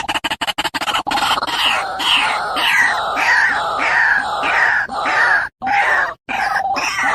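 A bird giving harsh, repeated calls, each one falling in pitch, about two a second, with short breaks near the end. A fast pulsing sound, about ten pulses a second, fades out in the first second.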